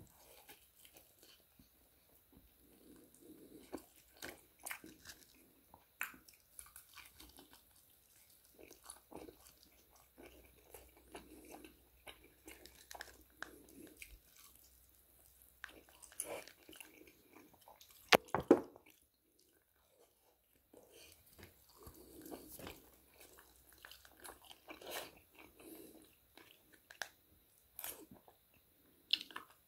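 Close-miked chewing and biting of KFC fried chicken: irregular crunches with wet mouth sounds. A louder crunch comes a little past halfway, then a short pause.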